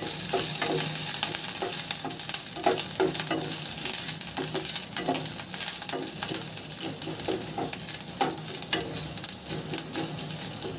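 Chopped ginger and grated garlic sizzling in a little oil in a non-stick pan, with a wooden spatula stirring and scraping through it in frequent short strokes.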